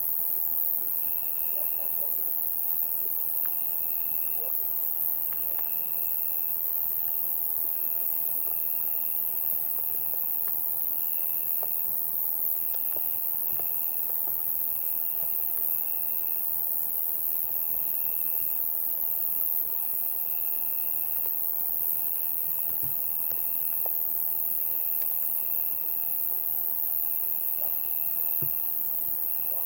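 A summer night chorus of insects: a steady, very high-pitched continuous shrill, with a lower trill of about a second, typical of crickets, repeating roughly every one and a half seconds.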